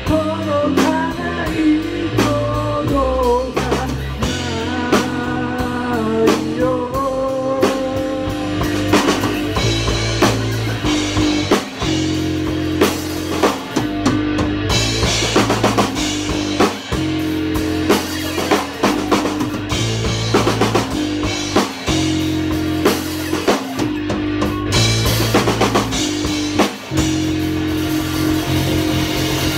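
Live rock band playing: electric guitars, bass guitar and drum kit, loud and steady, with a melodic line bending in pitch over the first several seconds before the drums and bass carry on alone underneath the guitars.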